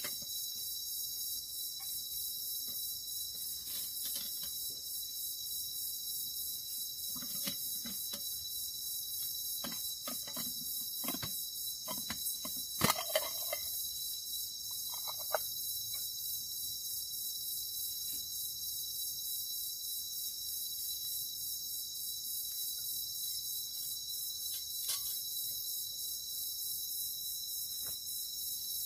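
Steady chorus of forest insects, several high, even tones held without a break. Scattered faint clicks and knocks come and go over it, most of them in the middle stretch.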